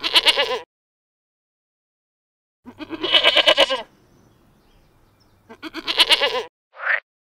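A goat bleating three times: loud, quavering calls with gaps of silence between them. Near the end comes a short, high, pitched blip.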